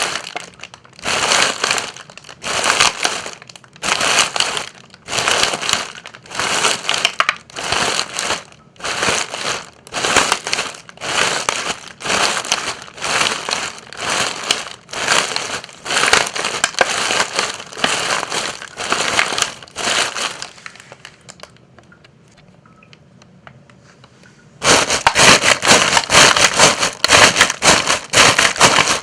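Footsteps crunching through dry forest leaves at a steady walking pace, about one step a second. About 20 seconds in the steps stop for roughly four seconds, then start again abruptly, louder and quicker.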